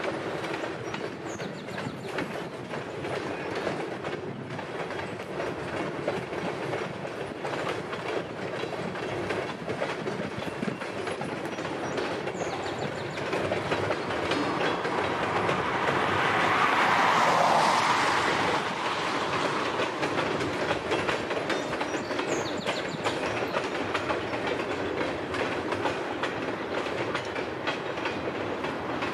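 Freight cars of a loaded paper train rolling past, their wheels clattering over the rails in a steady run, growing louder for a couple of seconds about halfway through.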